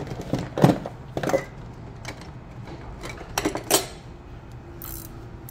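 Short metallic clinks and clanks of a 13 mm socket and wrench on a brake bolt as the bolt is started. They come in two clusters: one in the first second and a half, another about three and a half seconds in.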